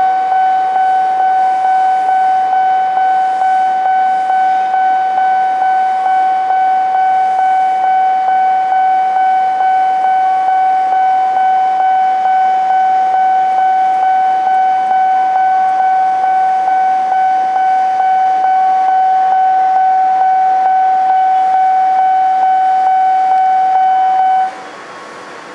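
Level crossing warning alarm: one steady electronic tone pulsing about twice a second, which cuts off suddenly near the end.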